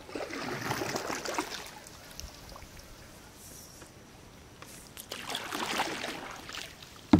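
Paddle strokes through the water from a small boat: two swishing, splashing strokes a few seconds apart, with drips in between. A single sharp knock comes right at the end.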